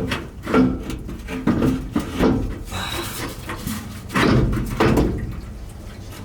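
Irregular clunks and scrapes of a pickup's fuel tank being worked loose and lowered from under the truck, with about five louder knocks spread through the stretch.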